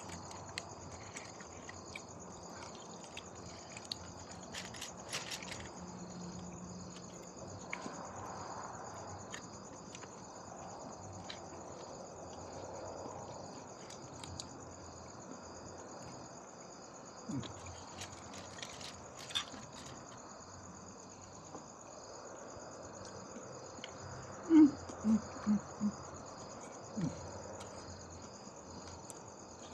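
Insects chirping steadily in an even, pulsing high-pitched drone, with a few scattered soft clicks. A handful of short, louder low sounds come in quick succession near the end.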